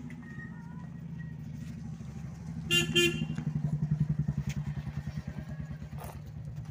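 A motor vehicle engine running steadily with a fast low pulse, while a vehicle horn beeps twice in quick succession about three seconds in.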